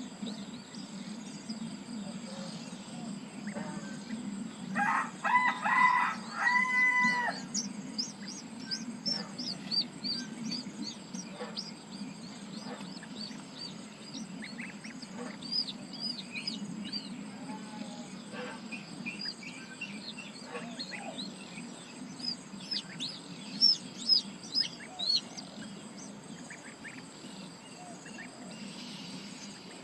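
A rooster crows about five seconds in, over frequent high chirping of small birds and a steady low hum.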